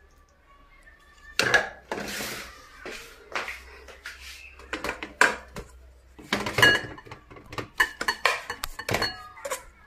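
Serving spoon knocking and scraping against pots and plates while food is dished up: a string of sharp clinks, some ringing briefly, with a scrape about two seconds in.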